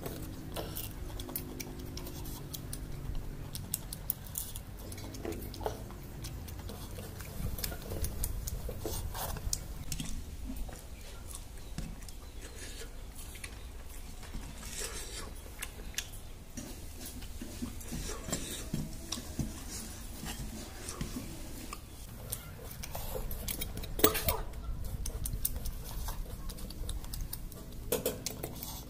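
Stainless steel bowls and plates clinking and scraping as food is picked from them by hand, in many small scattered clicks, with one sharper clink toward the end.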